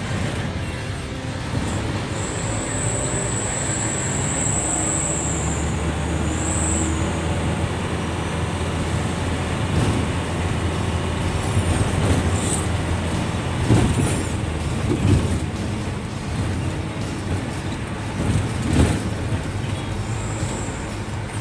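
Cabin noise inside a moving medium-sized bus: steady engine rumble and road noise, with a few short knocks and rattles from the body. About two seconds in, a thin high whine lasts about three seconds.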